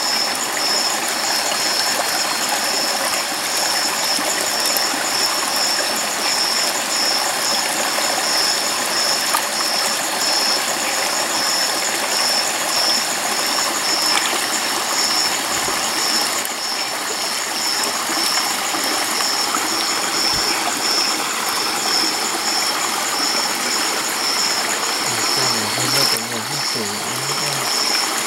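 Shallow stream running over rocks, a steady rush of water. A high, evenly pulsing chirp runs above it.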